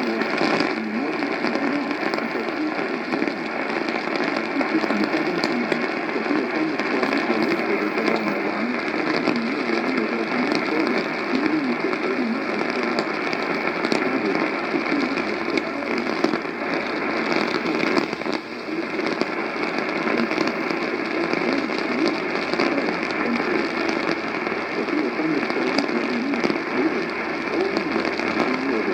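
AM radio receiver giving a steady hiss of static with light crackle, with a brief dip about 18 seconds in.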